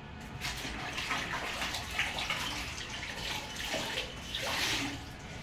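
A floor-mopping cloth being rinsed and squeezed by hand in a plastic bucket of water: uneven splashing and sloshing that starts about half a second in.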